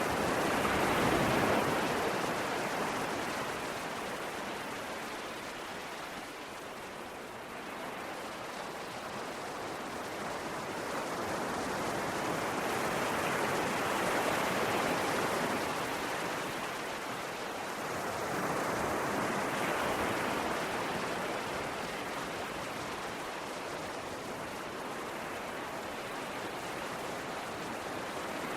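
Ocean waves breaking and washing onto the shore as a continuous rush of surf, swelling and ebbing over several seconds, with louder surges about a second in, around the middle and again a little later.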